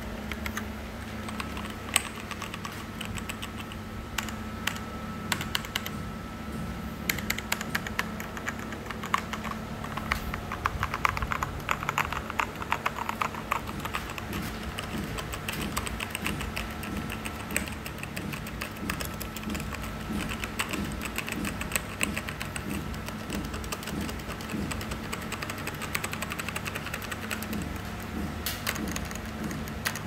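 Keys of an Azio MK-MAC mechanical keyboard being typed and tested, giving quick runs of clicky keystrokes with a fast flurry about a third of the way in, over a steady low hum.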